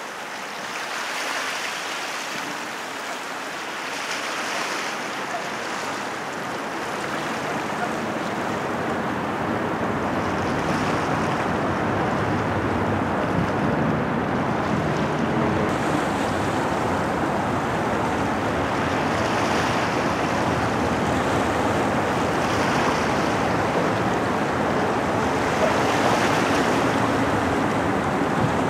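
Outdoor wind and water noise: wind buffeting the microphone over waves washing, a steady rush with soft swells every few seconds. It grows louder and deeper from about a quarter of the way in.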